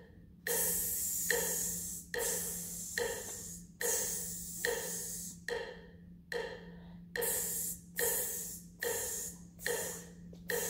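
A person sizzling a melody's rhythm with the mouth instead of playing it: a string of 'tss' hisses, each started sharply by the tongue and trailing off as the breath stretches it, a little more than one a second.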